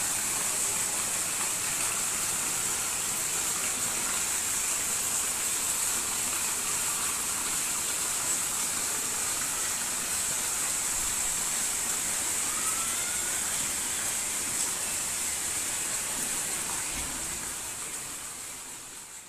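Steady hiss of heavy rain falling on a waterlogged street and puddles, fading away near the end.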